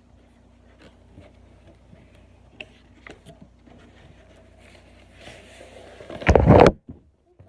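Faint rustling and small clicks of a tripod's box being handled and opened. About six seconds in comes a loud, short handling knock as the camera itself is bumped.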